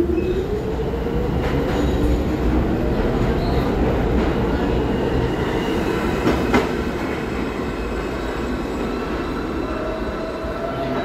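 R46 subway train pulling out and accelerating away. Its motors give a rising whine over the first couple of seconds, then a steady rumble of wheels on rail as it recedes, with one sharp click about six seconds in.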